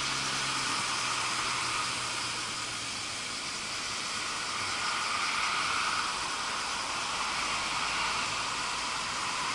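A dense, steady chorus of summer insects shrilling without a break, swelling and easing slightly.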